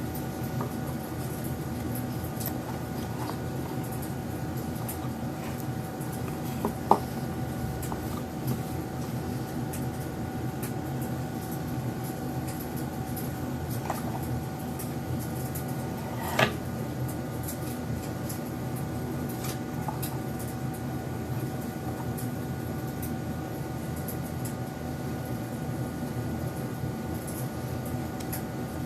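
Steady machine hum with a couple of faint fixed tones, broken by a few light clicks and taps from handling a card box and cards, two sharper ones about seven and sixteen seconds in.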